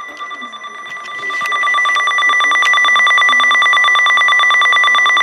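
Emergency alert attention tone announcing a tornado warning: a steady, high electronic tone that gets louder about a second and a half in and becomes a rapid, even pulsing beep.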